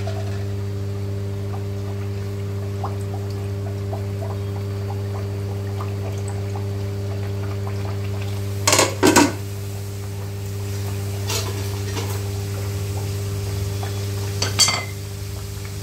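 Puris deep-frying in hot oil in a frying pan, over a steady low hum. A metal slotted spoon clatters against the pan in a short cluster of knocks about nine seconds in, and again briefly near the end.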